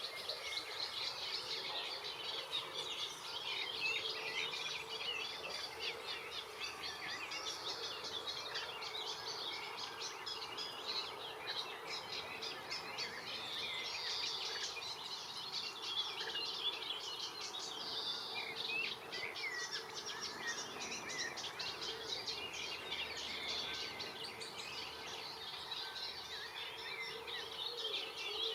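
Many songbirds chirping and singing at once, a dense overlapping chorus of quick high notes that goes on without a break. A faint steady low hum runs underneath.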